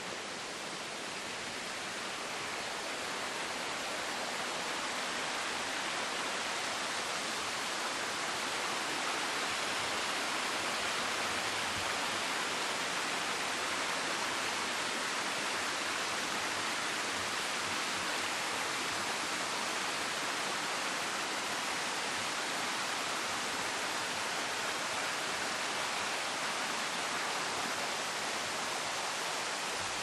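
Rushing water of a mountain stream running over rocks, a steady sound that grows a little louder over the first ten seconds and then holds.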